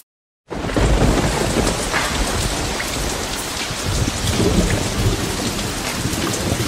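Rain-and-thunder sound effect: a steady hiss of heavy rain over a low rumble, starting sharply after half a second of silence, with scattered faint drop ticks.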